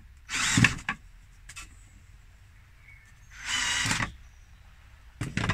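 Cordless drill-driver whirring in two short runs, about half a second in and again after three seconds, driving screws into a wooden frame, with its clutch set a little higher for more torque. A brief third burst comes near the end.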